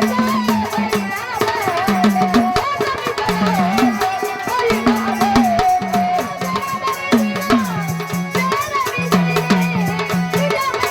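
Marathi devotional folk music of a gondhal party: fast, steady drum and rattle percussion under a wavering melodic line and a low line of held notes that step from one pitch to the next.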